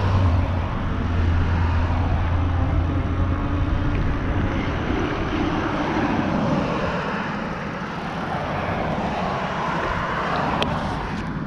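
Road traffic: cars passing one after another, swelling past near the start and again near the end, over a steady rush of wind on the microphone.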